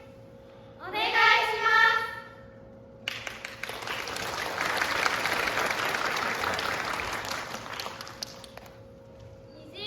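A short spoken phrase about a second in, then an audience applauding for about five seconds, building and dying away before the end.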